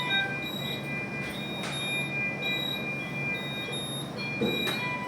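Electronic alarm beeps from neonatal intensive-care medical equipment: several beeping tones at different pitches start and stop, overlapping one another, over a steady equipment hum. There are a couple of brief clicks.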